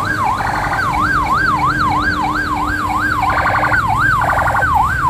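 Ambulance siren on a police ambulance van wailing in a fast yelp, its pitch sweeping up and down two to three times a second, with three short buzzy blasts laid over it.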